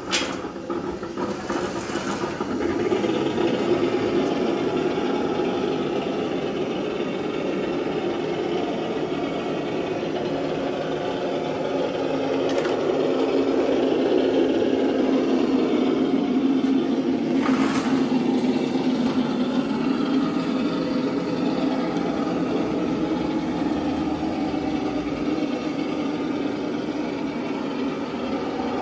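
Traxxas TRX-6 Mercedes-Benz G 63 AMG 6x6 RC crawler's electric motor and gearbox whining as it crawls over rock and sand, the pitch rising and falling slowly with the throttle. Two or three brief knocks stand out, one at the start and one more noticeable in the second half.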